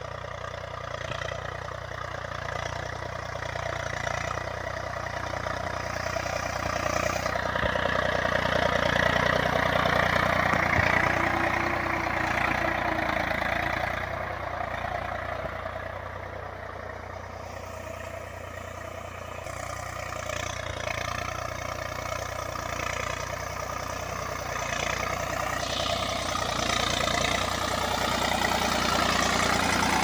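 Eicher 485 tractor's three-cylinder diesel engine running steadily while it pulls a tine cultivator through the soil. It grows louder about a third of the way in, eases off in the middle and rises again near the end.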